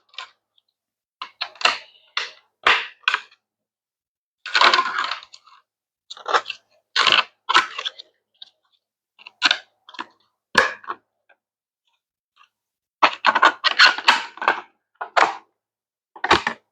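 Hard plastic parts of a modular hydroponic tower section clicking and clattering as they are handled and fitted together. They come in irregular short bursts, with a dense run of clicks near the end.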